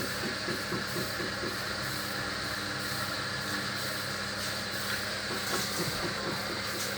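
Hoover HLW585DC washer dryer running through a rinse: a steady motor hum and hiss with soft, repeated swishing of the drum turning the wet load.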